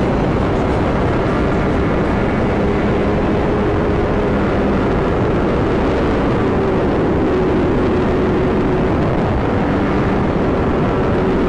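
Sport motorcycle running at a steady high speed: an unchanging engine drone under heavy wind rush.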